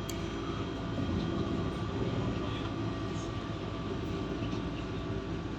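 Stadler Citylink Class 399 tram train heard from inside the passenger saloon while running: steady rumble of wheels on rail with a steady hum of traction equipment made of several held tones.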